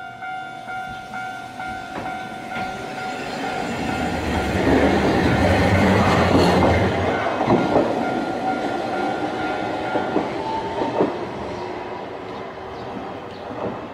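Level-crossing bell dinging in steady quick repeats while a tram rolls through the crossing, its wheels rumbling and clacking over the rail joints, loudest midway. The bell stops about ten seconds in, and a faint rising whine follows as the tram moves off.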